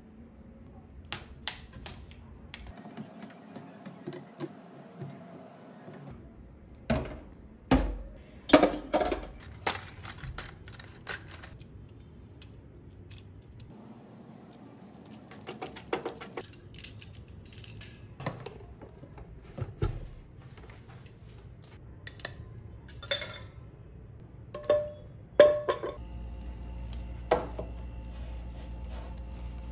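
Hands handling small household objects: a run of sharp clicks, taps and knocks as plastic hooks and a pot are pressed and set into place, loudest about eight and twenty-five seconds in. A steady hum comes in for the last few seconds.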